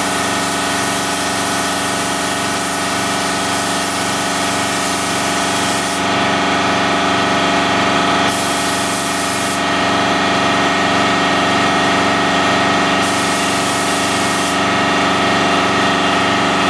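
Air-fed paint spray gun hissing in three passes, the trigger released between them, as it sprays etching primer onto a chrome grille. Underneath is a steady machine drone.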